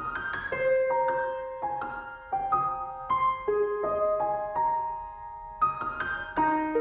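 Background piano music: a slow melody of single notes and soft chords, each note struck and left to fade.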